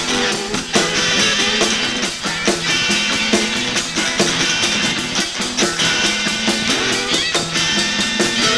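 Live rock band playing loud, with electric guitar over a drum kit beat.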